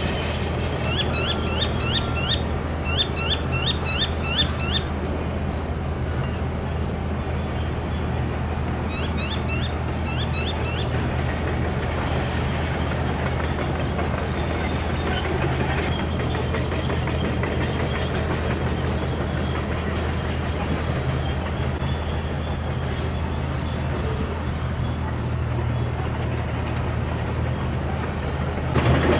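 A steady low mechanical hum under outdoor noise. Quick runs of high, descending chirps sound over it in the first five seconds and again around ten seconds in.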